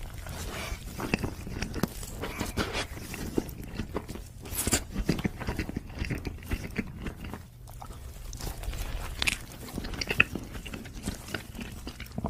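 Close-miked chewing and biting of glazed donuts: a continuous run of small clicks and crackles from the mouth, dipping briefly past the middle.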